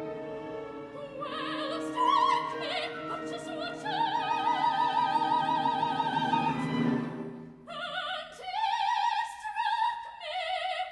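Operatic soprano singing with wide vibrato over an orchestra. She enters about a second in, holds a long high note through the middle, and near the end the low orchestral accompaniment falls away while she sings shorter phrases.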